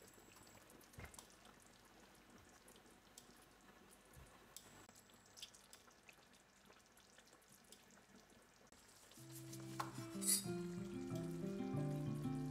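Faint frying sizzle with a few light clicks of a utensil against a pan. Soft instrumental music comes in about nine seconds in, with a couple of sharper clinks just after.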